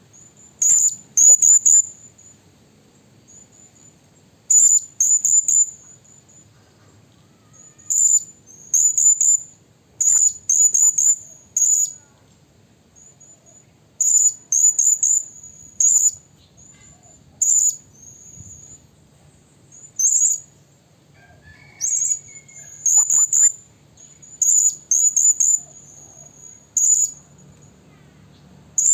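Blue-crowned hanging parrot (serindit) calling: very high, thin, sharp notes in quick clusters of two to four, a cluster every second or two. It is a lure call of the kind used to draw in wild serindit.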